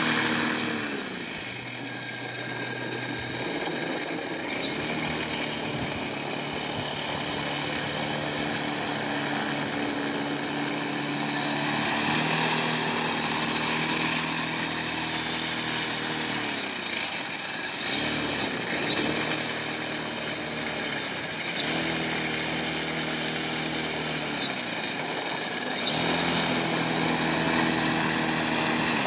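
Homemade propeller aerosled running on skis across pond ice: the propeller motor's buzzing hum and high whine drop and rise again several times as it slows and speeds up through turns.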